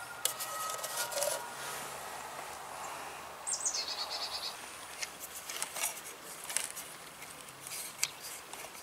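Faint scattered clicks of a plastic toy figure being handled, with one short high chirp that falls in pitch about three and a half seconds in.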